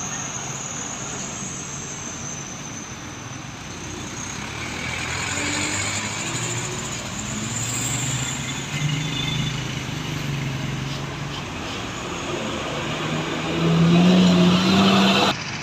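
Road traffic with buses and trucks passing, their engines swelling and fading over steady road noise. Near the end comes the loudest sound: a low steady tone that steps up once in pitch and stops abruptly after about a second and a half.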